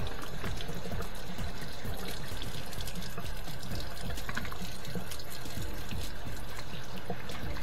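Water trickling and splashing steadily as hot water is run through an old Moffat dishwasher's clogged rinse-aid dispenser to flush out mineral buildup.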